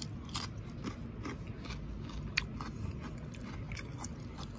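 A person chewing crunchy raw cucumber and sweet pepper salad close to the microphone: irregular crisp crunches, the loudest about two and a half seconds in.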